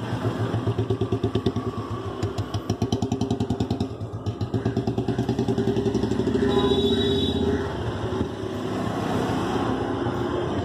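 Motorcycle engine running with a fast, even pulsing beat. A short higher-pitched tone sounds about six and a half seconds in.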